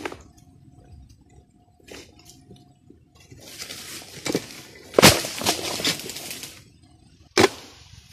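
A long-handled harvesting blade chopping into an oil palm's fronds and fruit stalks: about five sharp chops, the loudest about five seconds in, with stretches of leafy rustling and crashing in between as palm fronds shake.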